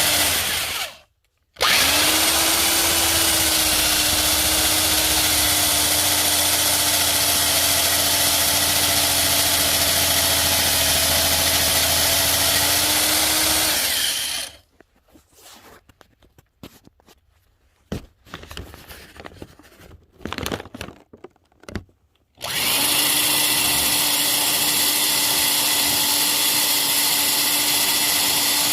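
Electric drill running at a steady speed, drilling holes to mount a seat bracket. It stops briefly just after the start and spins back up. About halfway through it stops for several seconds, with a few light knocks and clicks, then runs again.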